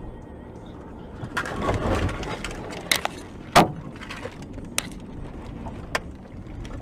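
Road noise inside a moving car, with a rushing rumble about a second and a half in, then four sharp knocks spread over the next few seconds, the loudest about three and a half seconds in.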